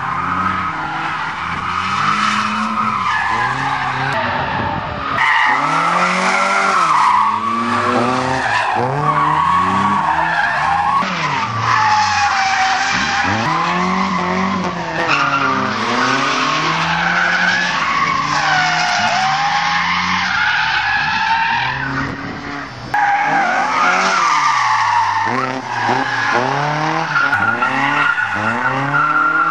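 Cars drifting: engines revving up and down over and over while the rear tyres squeal and screech as they slide.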